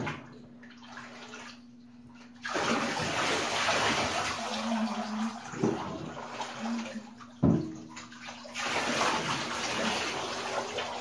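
Water running and splashing into a bathtub over a dog being rinsed, starting about two and a half seconds in. A sharp knock a little after seven seconds, with the water easing off briefly before it starts again.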